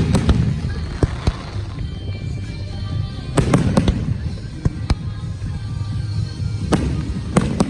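Aerial fireworks shells going off in sharp bangs over a continuous low rumble. The bangs come in clusters: a few around the first second, several between three and a half and five seconds, and more near the end.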